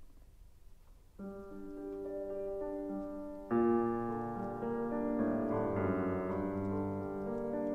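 Solo piano playing. After a brief pause, soft sustained chords enter about a second in, and a fuller, louder passage starts about halfway through.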